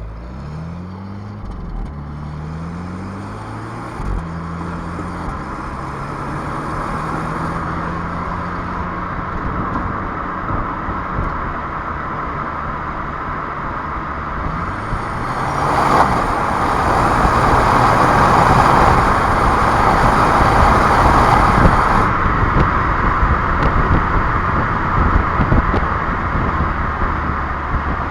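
Renault Clio 1.3 TCe turbocharged four-cylinder petrol engine pulling through several quick upshifts of the EDC dual-clutch gearbox in the first few seconds, then running steadily at a slowly falling pitch. A loud rush of road and wind noise swells about halfway through and drops back a few seconds later.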